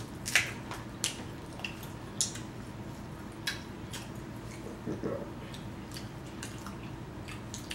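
Hands peeling a boiled shrimp and picking at crab legs: scattered sharp clicks and cracks of shell, with soft wet squishing of seafood handled and dipped in a bowl of sauce.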